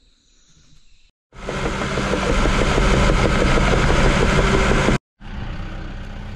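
Caterpillar bulldozer's diesel engine running while the machine drives along, heard from inside the cab. It cuts in suddenly about a second in and cuts off abruptly around five seconds, followed by a quieter, steady engine idle.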